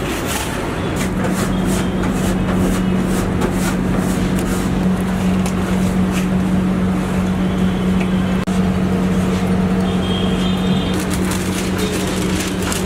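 Steady street-traffic noise with a constant low hum, like an idling engine, and scattered light ticks over it.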